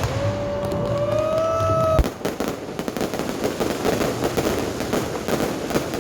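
Fireworks: a whistling tone rises and holds for about two seconds, then a sharp bang, followed by dense rapid crackling.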